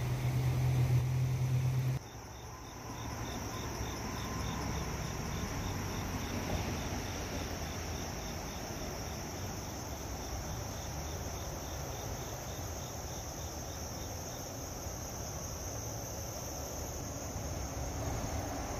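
Crickets chirping in a steady pulsing rhythm with a continuous high insect trill, over the even rush of a swollen creek. A low hum fills the first two seconds and cuts off abruptly.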